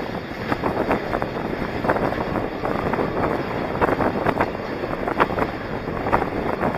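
Inline skate wheels rolling fast on asphalt, with wind rushing over the microphone and a short scrape of wheels on the road at each stride, about every half second.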